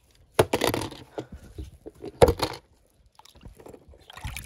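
A small die-cast toy car splashes into a plastic tub of water about half a second in, and a second splash follows about two seconds in. Softer sloshing of a hand moving through the water comes near the end.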